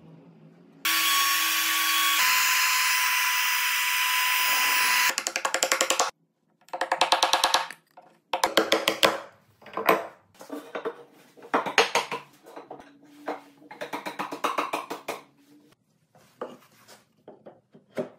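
A power tool runs steadily for about four seconds with a fixed whine. Then come bursts of rapid knocking from chisel and hammer work cleaning out a mortise in hardwood.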